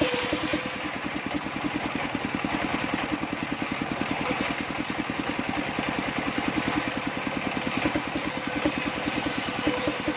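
Engine of an engine-driven circular saw table running steadily, with an even, rapid pulsing beat.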